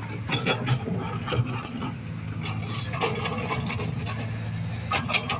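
Sany SY215 excavator's diesel engine running steadily, with repeated scraping, clicking and clattering from the bucket working through coal.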